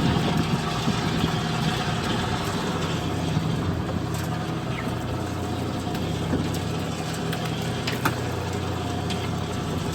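Fishing boat's engine running steadily with a low, even hum, with a few light clicks from the deck gear.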